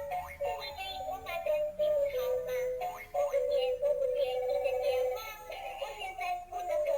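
Toy retro telephone playing a children's song from its built-in sound chip, a simple melody with a synthesized-sounding singing voice.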